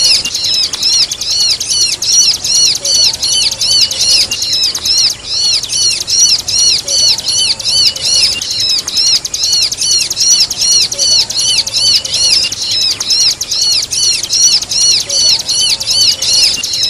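Bar-winged prinia (ciblek) calling, mixed with kejepit pinched-bird squeaks: a continuous, rapid run of high, arching chirps, about three a second, loud and steady.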